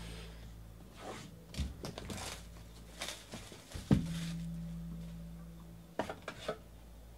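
Plastic shrink wrap crinkling and tearing as it is pulled off a sealed trading-card box, with the cardboard boxes knocked down on a table. The loudest knock comes about four seconds in, followed by a low hum, and a few light taps come near the end.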